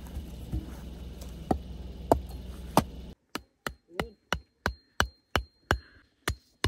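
A hatchet chopping wood: four heavy strikes a second or so apart, over a steady low hum. Then, after a cut, quick regular hatchet blows on the top of a wooden stake, about three a second.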